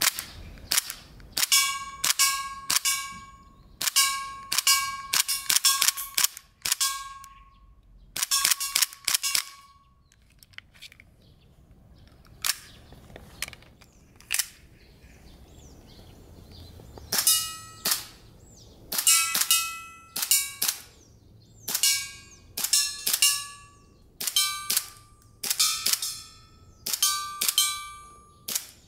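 Tokyo Marui HK45 gas blowback airsoft pistol with a metal slide firing on normal gas: sharp cracks of shots, one after another, in quick strings about half a second apart, many followed by a short metallic ring. There is a pause of several seconds near the middle with only a few faint clicks, then the shooting resumes.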